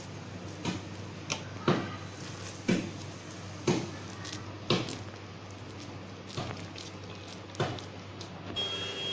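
Hands squeezing and patting coarse ground chana dal vadai dough into balls over a steel bowl: short soft squishes about once a second. A brief steady high-pitched tone near the end.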